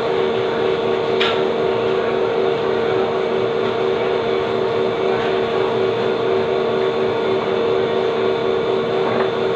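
Steady machine hum, an even drone that does not change, with a single sharp click about a second in.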